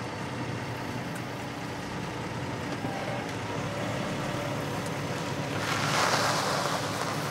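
Road traffic: a steady engine hum under a haze of street noise, swelling into a louder rush about six seconds in, like a vehicle passing close by.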